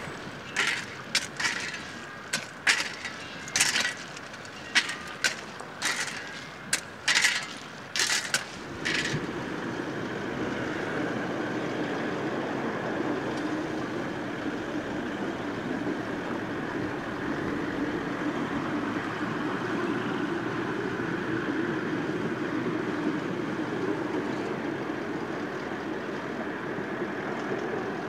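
Hand tools scraping and striking railway ballast stones as workers spread ballast under the rails: about a dozen sharp, irregular scrapes and clinks. About nine seconds in it gives way to the steady drone of a hi-rail utility vehicle running along the track.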